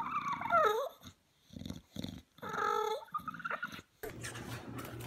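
English bulldog whining in wavering, pitch-bending calls between noisy grunting breaths. About four seconds in this gives way to steady room noise with a low hum and a few light clicks.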